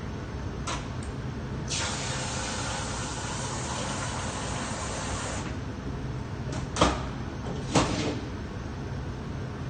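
Commercial bakery oven running with a steady low hum; a hiss starts about two seconds in and lasts about four seconds, then two sharp knocks follow about a second apart.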